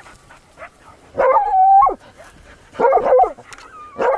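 Three loud, drawn-out canine bark-whines about a second and a half apart, each holding one pitch and then dropping off sharply at the end.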